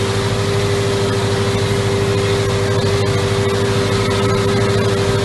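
Tractor engine running steadily, heard from inside the cab while driving along a grass swath, with a steady whine over the low engine note.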